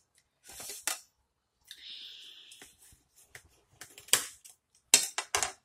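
Knife and fork cutting through a huarache on a plate: a short scraping stretch, then several sharp clinks and clicks of metal cutlery against the plate near the end.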